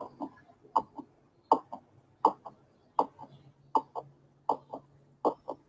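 Heartbeat sound playing steadily in double thumps (lub-dub), about 80 beats a minute.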